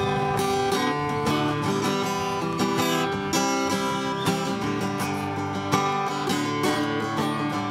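Acoustic guitar strummed in chords, played solo as the instrumental lead-in before the singing starts.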